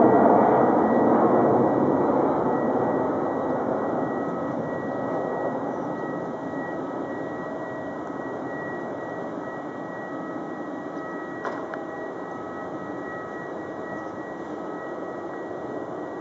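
Boeing 737-500's twin CFM56-3 turbofan jet engines at climb power, a broad rushing roar fading steadily over the first several seconds as the airliner climbs away, then holding at a lower, distant level with a thin steady high whine above it.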